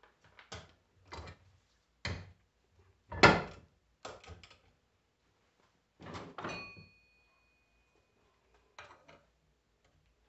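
A handful of separate metal knocks and clunks from tools and a starter motor being handled at a workbench vise, the loudest about three seconds in. A clatter around six and a half seconds is followed by a brief metallic ring.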